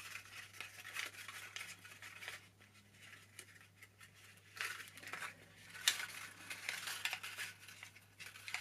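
Paper cupcake cases crinkling and rustling as the cord threaded through them is handled and tied into a knot: scattered short rustles, fainter for a couple of seconds in the middle.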